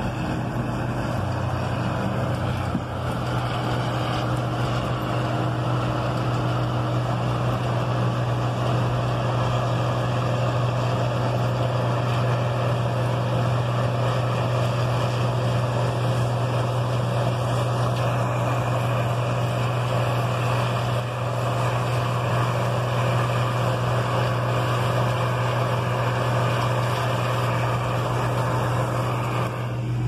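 Minivan driving over a harvested field, heard from inside the van: a steady low engine hum with a constant rumble of tyres and road noise.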